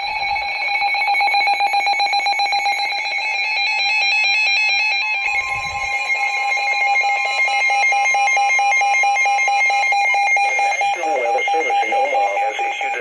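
Emergency alert tone: a loud, steady electronic alarm tone with a fast pulsing texture. A second, slightly higher tone joins about five seconds in and drops out about ten seconds in.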